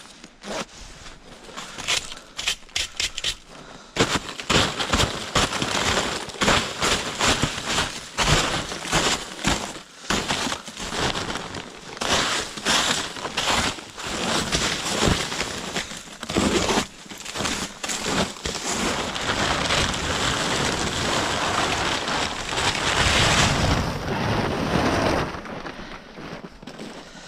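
A stiff, snow-covered tarpaulin cover being pulled and dragged off, with irregular crackling and rustling of the fabric and snow falling from it. The sound thickens into a continuous rustle for the middle stretch and eases off near the end.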